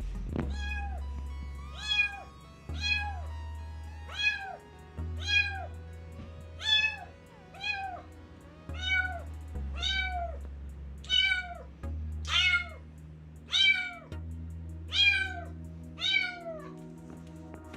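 Young orange kitten meowing over and over, about one high-pitched meow a second, each call rising then falling in pitch.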